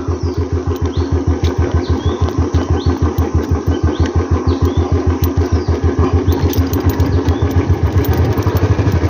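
Motorcycle engine running at low revs as the bike creeps down a rough stony track, an even thump of about eight beats a second.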